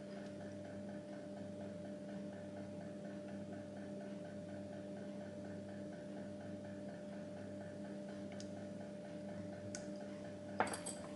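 Faint, even ticking over a steady low hum in a quiet room, with one sharp click near the end.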